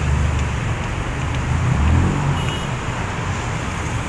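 Steady road traffic noise from dense cars and motorbikes on a multi-lane road, a continuous low rumble of engines and tyres that swells slightly about two seconds in.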